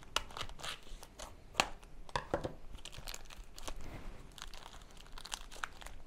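Clear plastic wrapper crinkling and tearing in irregular crackles as gingerbread house kit pieces are unwrapped.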